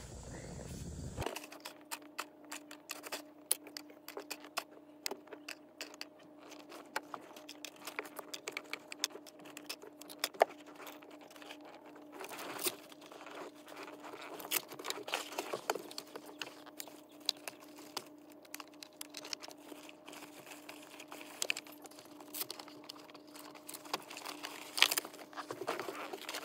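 Handling noise from a child's car seat being taken apart: rustling fabric and an irregular clatter of clicks and rattles from its plastic shell and metal buckles and straps, over a steady low hum.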